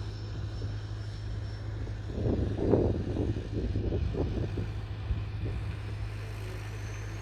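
The model's jet turbine runs with a thin, high steady whine over a low hum. About two to five seconds in comes a louder stretch of uneven noise, and near the end the whine comes back at a higher pitch.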